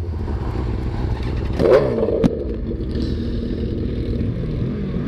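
Sport motorcycle engines idling at a standstill, with a brief louder burst about a second and a half in and a sharp click just after it.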